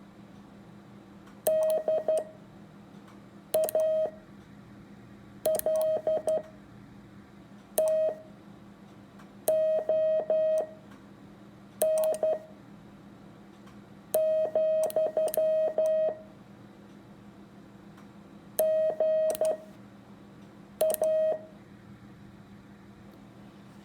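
Morse code sidetone keyed from paddles: characters sent at 13 words a minute with wide gaps between them (Farnsworth-style spacing), nine characters in all as steady mid-pitched beeps with sharp clicks at each dit and dah. A faint steady hum runs underneath.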